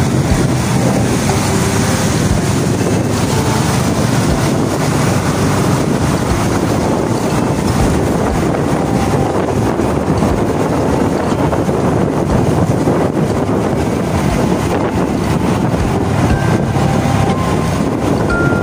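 Steady wind rushing over the microphone of a motorcycle on the move, with the bike's engine running underneath.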